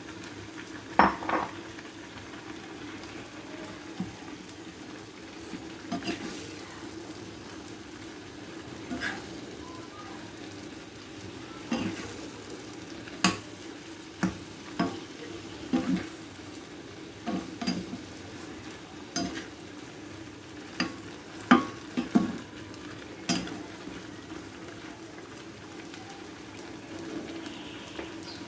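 Steel slotted spoon stirring chicken pieces through thick curry masala in a kadai, with irregular clinks and scrapes of the spoon on the pan every second or two over a low steady sizzle.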